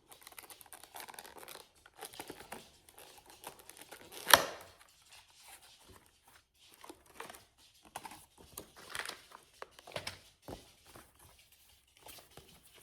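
Packaging of a small brick-building set being torn open and crinkled by hand, in irregular crackles with one louder sharp rip about four seconds in.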